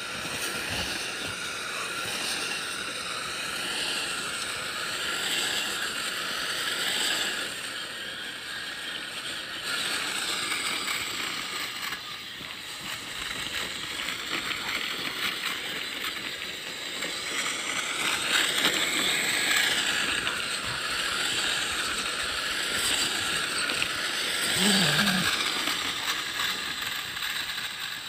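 Kyosho Blizzard RC snowcat driving: its twin brushless motors and gear-driven plastic tracks make a continuous mechanical whir and clatter. The whine rises and falls with the throttle.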